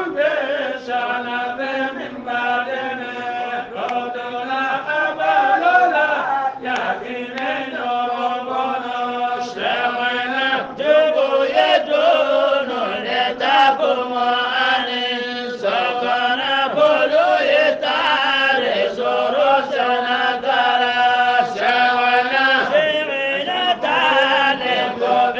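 Chanting of a kassida (qasida), an Islamic devotional poem, sung as a continuous melodic chant with long held and ornamented notes.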